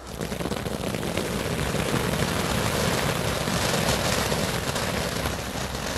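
Funke Silvery Flower firecracker's fountain head spraying sparks with a steady rushing hiss that swells a little over the first couple of seconds: the fountain stage that precedes the firecracker's bang.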